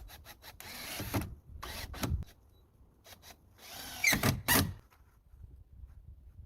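A tool working timber in short bursts. There are a few quick strokes, then longer runs about a second and two seconds in. The loudest burst comes about four seconds in, with a pitch that slides downward.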